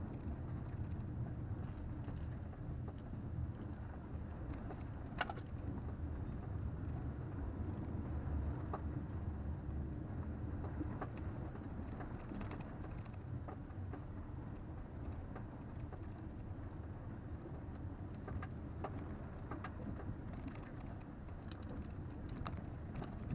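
Inside the cabin of a 2020 Toyota RAV4 driving on a dirt desert trail: a steady low rumble of engine and tyres. Scattered light clicks and knocks run through it, one a little sharper about five seconds in.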